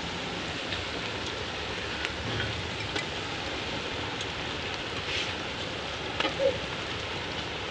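Bitter gourd and onion masala frying in oil in an aluminium pot over a wood fire: a steady sizzle with scattered small pops and crackles, and a couple of louder clicks about six seconds in.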